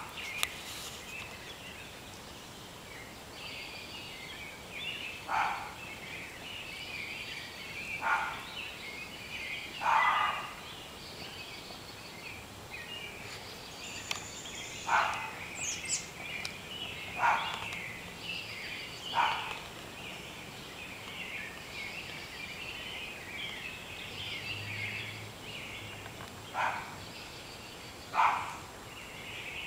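A dense chorus of high-pitched animal calls, with louder, lower-pitched short calls standing out about eight times at irregular intervals.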